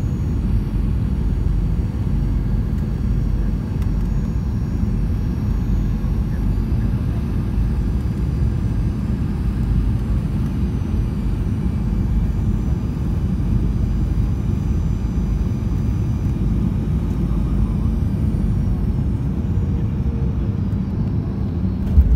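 Cabin noise of a jet airliner on final approach: a steady low rumble of engines and airflow with a faint high whine. A sudden thump near the end as the wheels touch down on the runway.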